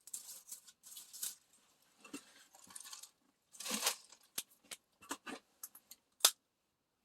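Someone eating roasted ginkgo nuts: irregular crunching and chewing with small cracks of shell, and one sharp crack a little after six seconds in.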